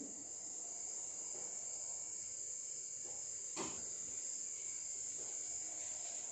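Crickets chirring steadily in a high, even pitch, faint under the room, with one soft click about three and a half seconds in.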